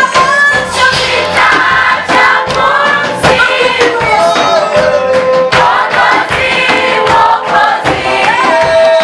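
A choir singing a gospel praise-and-worship song in several voices over a steady beat.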